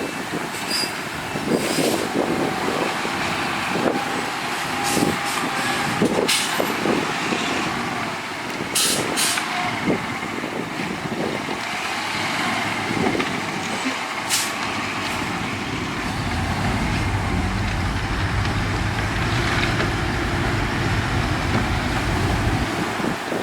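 Ten-wheel dump truck working: its engine runs under scattered knocks and a few short sharp hisses, settling into a steadier low drone about two-thirds of the way through.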